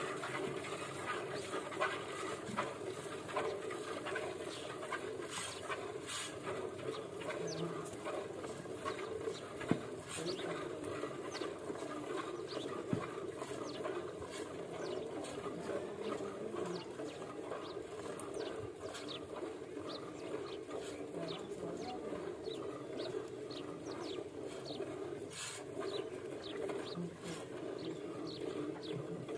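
A cow being hand-milked, with streams of milk squirting into a steel bucket that already holds foamy milk. Small birds chirp in quick short calls throughout.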